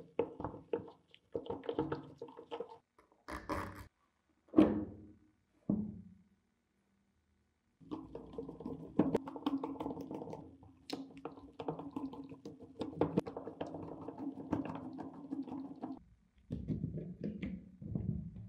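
Screwdriver turning screws out of an old Black & Decker drill's metal gear housing: scattered clicks of the bit in the screw heads and two sharp knocks in the first few seconds, then a long rough scraping as a screw is turned out. Metal parts of the housing are handled near the end.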